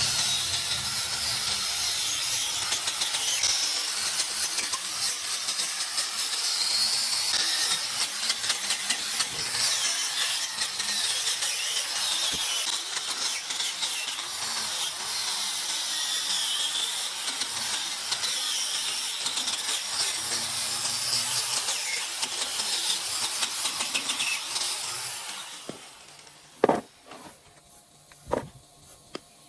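Rough, hissing scraping of abrasive or cutting work on metal engine parts, steady for most of the time and fading out near the end, followed by two sharp knocks.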